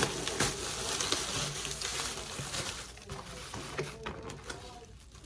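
Paper food packaging crinkling and rustling as it is handled, busy for about three seconds and then dying down.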